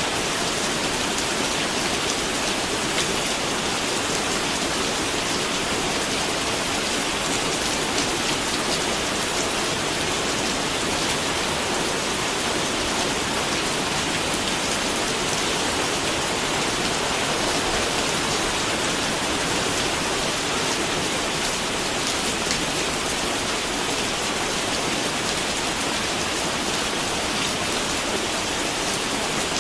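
Steady rain falling and pattering on a surface, an even hiss of drops with no thunder or other events.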